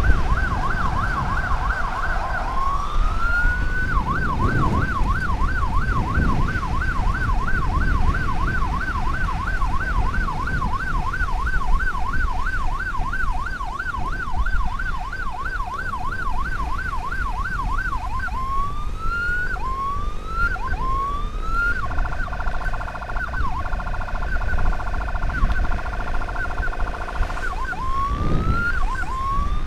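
Electronic emergency siren. It first sounds a fast warbling yelp, then single rising whoops about once a second, then a steady blaring tone for about five seconds, and rising whoops again near the end. Low road and wind rumble runs underneath.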